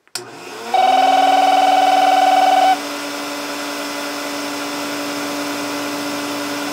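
A Hoover Constellation canister vacuum switches on with a click and its motor spins up into a steady hum. Under a second in, the Muraphone cordless phone's electronic ringer buzzes for about two seconds, stops, and starts again near the end: a false ring set off by the vacuum's electrical interference through the house wiring.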